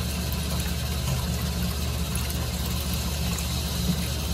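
Steady low machine hum with an even hiss, with one brief tap near the end.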